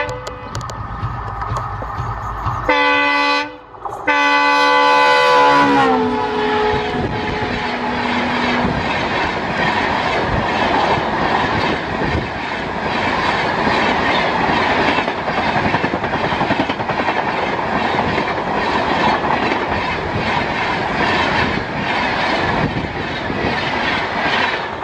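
Diesel locomotive rumbling closer, then sounding its horn in two blasts about three and four seconds in, the second sliding down in pitch as it passes. The train's coaches or wagons follow, wheels clattering over the rail joints for most of the rest.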